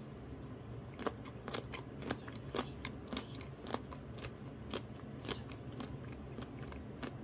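Close-up chewing of crunchy kimchi, crisp crunches about twice a second.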